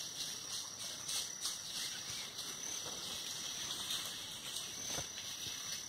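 Insects chirring steadily: a high, even buzz with a thin unbroken tone running through it, and a few faint knocks.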